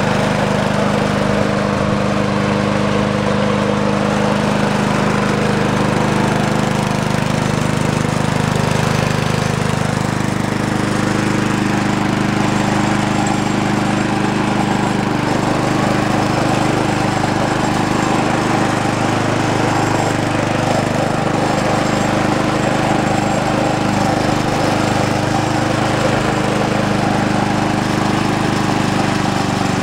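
Snapper walk-behind mower's 4 hp Briggs & Stratton engine running steadily, freshly started on the fourth pull after sitting unused through the winter.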